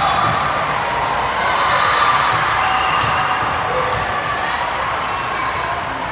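Indoor volleyball game: a steady hubbub of crowd and player voices, short high squeaks of shoes on the court, and a few sharp slaps of the ball being struck.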